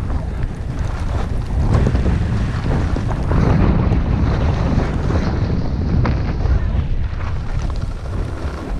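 Loud rushing wind buffeting a skier's camera microphone at speed, with the hiss of skis running over groomed snow.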